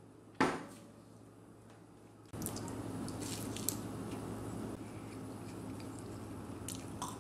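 A short knock about half a second in, then from about two seconds in a man biting into and chewing a crisp-fried hash brown and cheese quesadilla, with wet mouth sounds and a few crunches.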